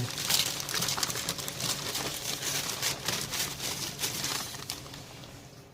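Packaging rustling and crinkling in dense, irregular crackles as grill grates are unpacked, dying away near the end.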